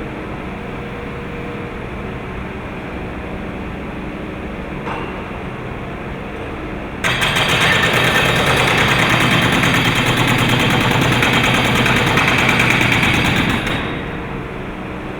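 A backhoe's diesel engine runs steadily. About seven seconds in, its hydraulic breaker starts hammering with rapid, loud blows for about seven seconds, then stops, leaving the engine running.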